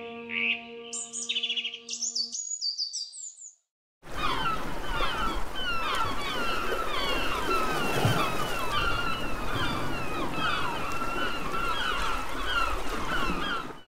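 For the first two seconds or so, music with high chirping notes plays and then stops; after a second of silence, a flock of gulls calls over one another. Many short overlapping calls run on over a steady hiss.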